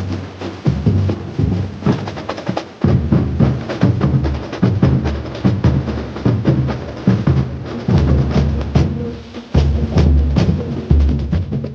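Carnival comparsa drum corps (batería) playing a driving rhythm together: deep bass drums pounding under a dense stream of sharp drum strokes.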